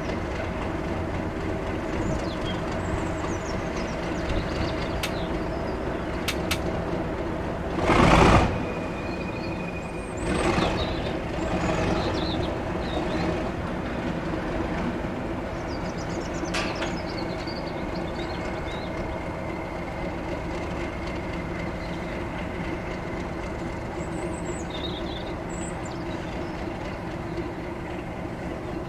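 Railway locomotive standing with a steady running hum, and a loud short hiss of released air about eight seconds in, followed by two softer hisses a few seconds later.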